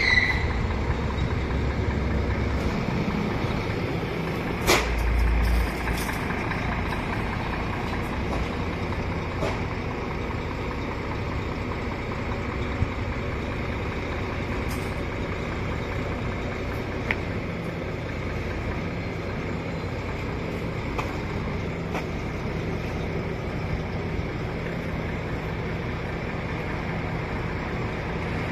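Diesel engine of a Volvo truck-mounted knuckle-boom crane running steadily while the crane lifts a load. There is a brief high squeal at the very start and a sharp knock about five seconds in.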